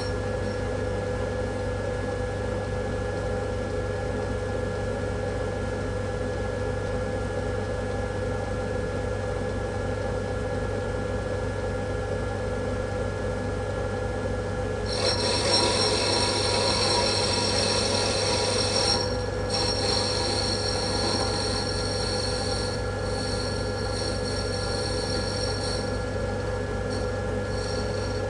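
Myford lathe running, with a steady motor and drive hum. About halfway through, a louder high-pitched squeal joins in for about ten seconds, briefly dropping out once, then eases back to the plain running hum.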